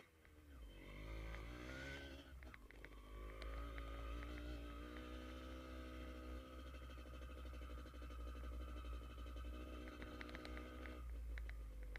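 Motorcycle engine running under way. Its pitch climbs in the first two seconds, drops at a gear change a little after two seconds in, then holds steady, easing off again near the end. A steady low rumble runs underneath.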